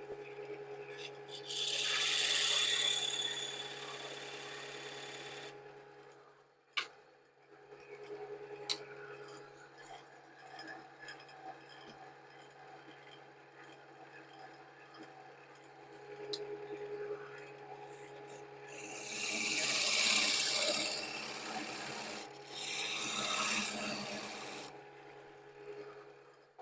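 Wood lathe running with a steady hum while the spinning wood is worked. There are two loud stretches of scraping noise, about two seconds in and again from about nineteen seconds, with a couple of sharp clicks between them.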